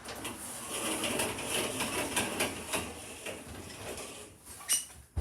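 Passenger lift making a hard start: rattling and clattering from the car and its machinery, then a short burst and a low thump near the end.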